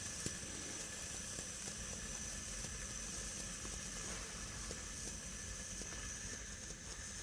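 Faint, steady hiss of refrigerant flowing through the charging hose into the package unit's system as it is charged by weight after evacuation.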